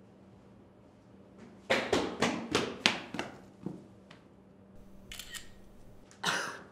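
A quick run of about five sharp clicks in just over a second, then a fainter click, two thin high clicks, and a short hiss near the end.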